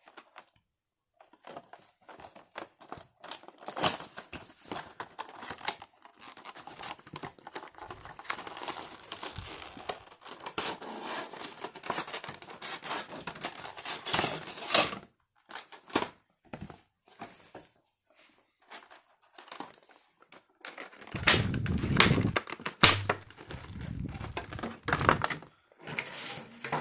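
A Funko Pop box being opened by hand: cardboard and plastic packaging tearing and crinkling, with scattered sharp clicks. Louder rustling and handling knocks come in the last few seconds.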